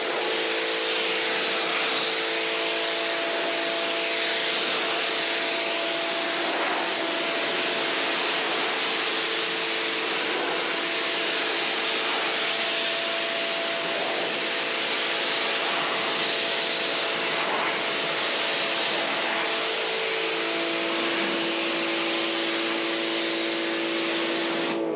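Pressure washer spraying water from its wand onto wooden stall walls: a steady hiss from the jet over a steady hum. The hum's pitch shifts a little about 20 seconds in.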